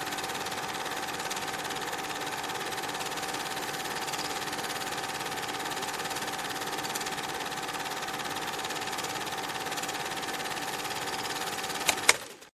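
A small machine running with a steady whirr and a constant high whine. Near the end come a few sharp clicks, then the sound cuts off suddenly.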